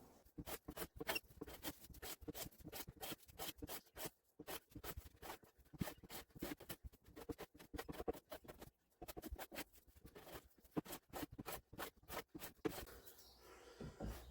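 Hand plane being pushed over wood, a faint, rapid, irregular run of short scraping and clicking sounds as the blade takes shavings, with a brief pause about two-thirds of the way through.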